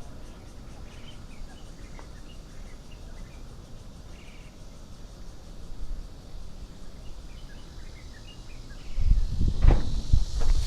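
Quiet outdoor ambience with faint scattered chirps of birds or insects. About nine seconds in, a run of loud, irregular thumps and rustling starts close to the microphone: someone moving.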